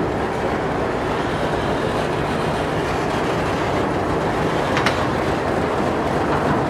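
NSW 44 class Alco diesel-electric locomotive running as it moves slowly along the platform road, a steady engine rumble with rail and wheel noise. A brief high squeak sounds about five seconds in.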